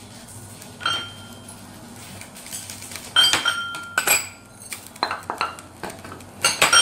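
Metal cookware clanking at a wok: one sharp ringing clink about a second in, then a run of clinks and knocks from about three seconds in, as a wooden spatula goes into the pan near the end.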